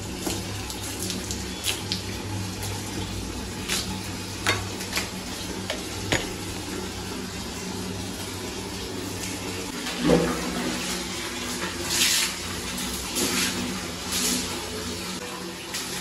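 Water splashed again and again onto a wooden bathroom door and tiled wall, rinsing off the cleaning liquid, with sharp splashes a second or two apart and the biggest about ten seconds in. A low steady hum lies under it and stops about ten seconds in.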